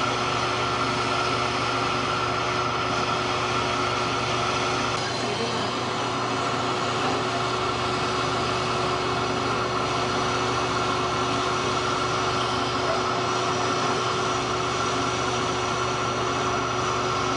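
Steady whirring drone with a constant hum from laser-surgery equipment running while the uvula and soft palate are vaporized during laser-assisted uvulopalatoplasty.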